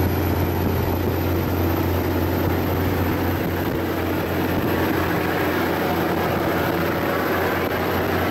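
Semi truck's diesel engine and road noise heard from inside the cab while it drives: a steady low drone with an even rush of tyre and wind noise over it.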